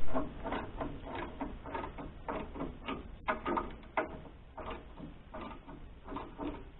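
A sharp knock at the very start, then a run of uneven squeaky metal strokes, about one or two a second, as a hand tool is worked on the sawmill's belt tension adjustment.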